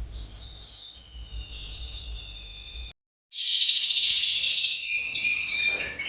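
Small cage birds, finch mules and hybrids, singing and twittering. The song is faint at first, breaks off briefly about three seconds in, then comes back as a louder, denser chorus.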